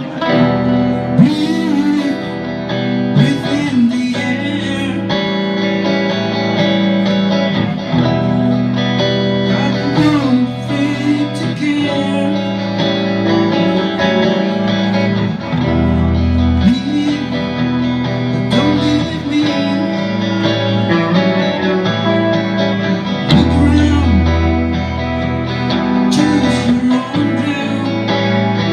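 Music: a song played on guitar.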